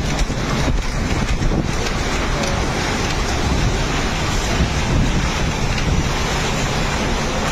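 Strong typhoon wind gusting and buffeting the microphone: a loud, continuous rushing roar with no let-up.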